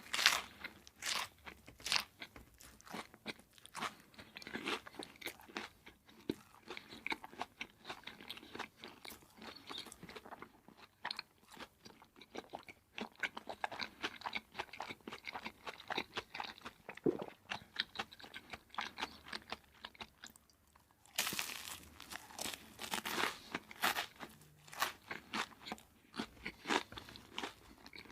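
Close-miked eating of crispy fried food: a bite, then steady crunching and chewing. The chewing eases for a moment about twenty seconds in, then louder crunching follows.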